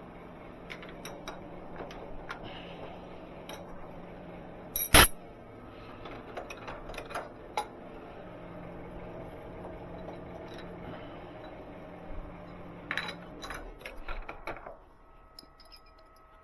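Metal tools and machine parts clinking and clattering as they are handled at a milling machine, with one sharp, loud metallic clank about five seconds in and a few more clicks near the end. A steady low hum runs underneath and stops shortly before the end.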